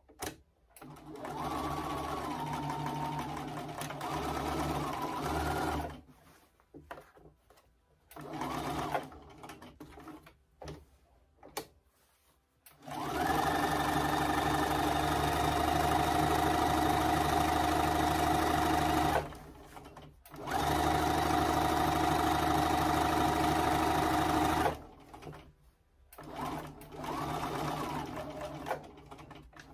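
Bernina sewing machine stitching through layered fabric while top-stitching, running in stretches of a few seconds with short pauses between them. The longest run lasts about six seconds, and there are a couple of brief spurts.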